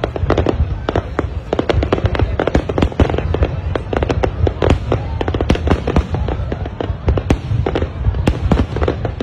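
Aerial fireworks display: a dense, unbroken barrage of shell bursts, several bangs and crackles a second overlapping one another over a low rumble.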